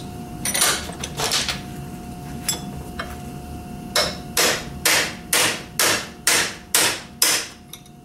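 Hammer striking a steel punch, metal on metal, to drive the rivet-like pin out of a door-hinge hold-open spring clamped in a bench vise. Two blows land in the first second and a half, then after a pause a run of about eight blows comes at roughly two a second, with the pin taking a little more beating than usual.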